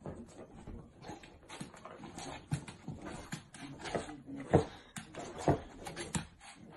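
A dog whimpering in a run of short sounds, the two loudest a little past halfway.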